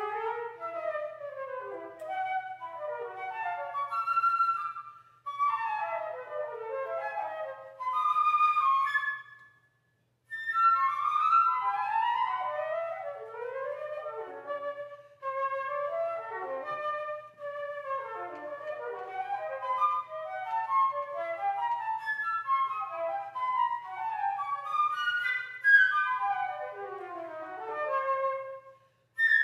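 Solo flute playing unaccompanied, fast running passages and arpeggios that sweep up and down, breaking off briefly a few times.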